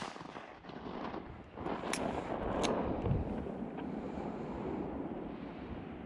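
Wind buffeting the microphone, a rushing noise that swells about a second and a half in and slowly eases, with a couple of sharp clicks.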